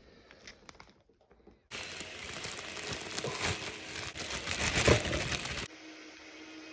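Plastic sandwich bags and cling wrap crinkling as they are handled and unwrapped, for about four seconds starting about two seconds in. A faint steady hum follows near the end.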